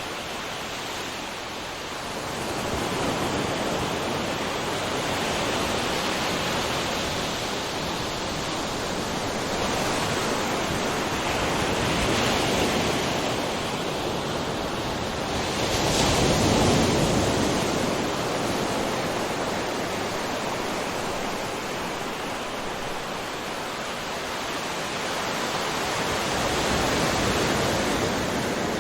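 Ocean waves breaking and washing on a shore, a continuous rush of surf that swells and eases every few seconds, with the loudest wave about halfway through.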